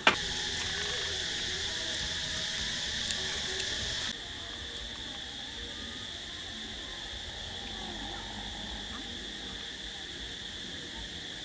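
Steady, high-pitched insect chorus droning without a break. It is louder and hissier for the first four seconds, then drops abruptly to a quieter drone.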